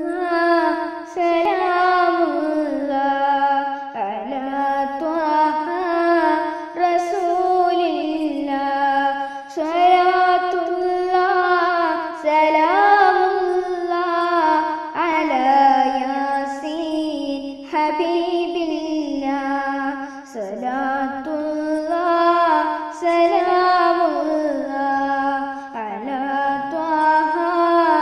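A boy singing a Malayalam madh song, a devotional song in praise of the Prophet, with no instruments. A single voice holds long, wavering notes in phrases of a few seconds each.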